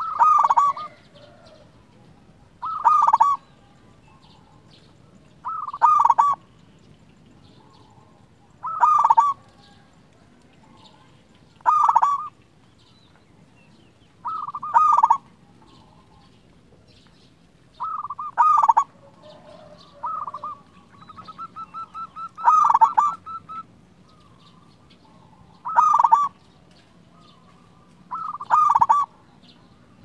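A local zebra dove (perkutut lokal) cooing in short, loud phrases, about one every three seconds, eleven in all. Just past the middle, one phrase is led in by a quick stuttering run of short notes.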